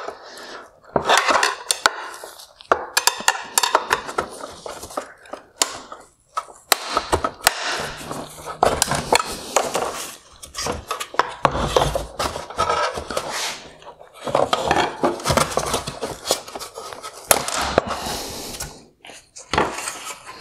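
A screwdriver prying and scraping against the plastic mounts of a BMW X7 LED headlight's inner LED projector, with many irregular clicks, clacks and rattles of plastic and metal as the bracket is worked loose and popped off.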